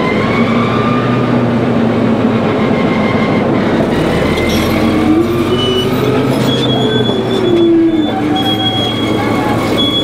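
Caterpillar D9H bulldozer climbing a lowboy trailer ramp: its diesel engine working hard under load, with the grinding and high thin squeals of the steel tracks. The engine note rises about halfway through and drops back near the end.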